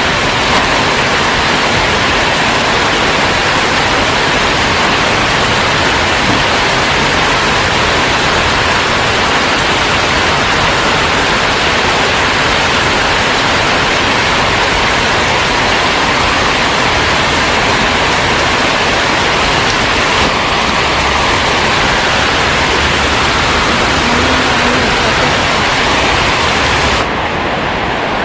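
Heavy rain pouring steadily as a dense, even hiss. Near the end it suddenly becomes slightly quieter and duller.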